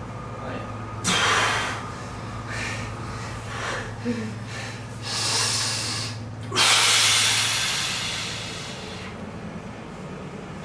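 A person breathing out hard several times, in loud rushes of breath. The longest and loudest comes about six and a half seconds in and fades away over a couple of seconds.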